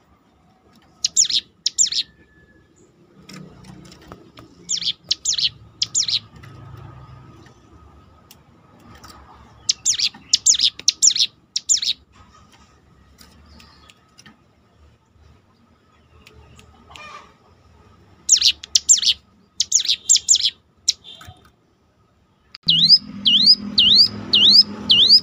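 Hill prinia (ciblek gunung) calling: clusters of two to four sharp, high notes every few seconds, then, near the end, a fast unbroken run of rising-and-falling notes that sounds like a siren.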